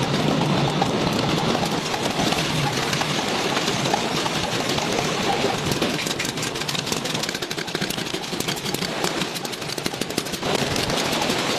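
Noodle-making machinery running with a steady mechanical noise. A dense, rapid clatter builds up in the middle.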